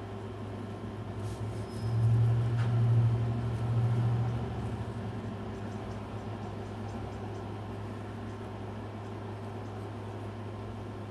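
A steady low hum, which swells louder for about three seconds starting near two seconds in and then settles back to its steady level.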